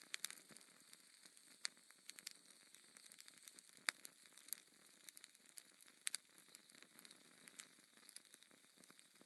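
Faint crackling fire: a steady hiss broken by irregular sharp pops, one of the loudest about four seconds in.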